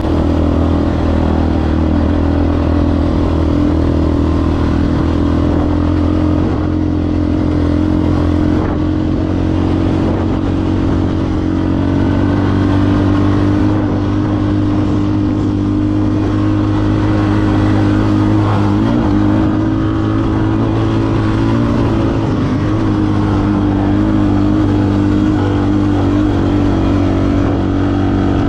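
ATV engine running at a steady, even pitch as the quad rides along.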